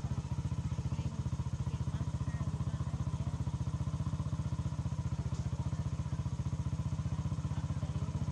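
A small engine running steadily at idle, with an even throb of about ten beats a second.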